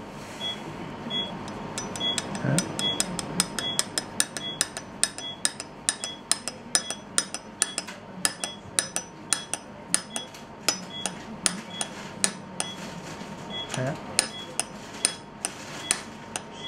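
Quick light metallic clicks and taps, a few a second, from steel surgical instruments working in a dental implant site during bone expansion. A short high beep, such as a patient monitor gives, repeats steadily a little faster than once a second.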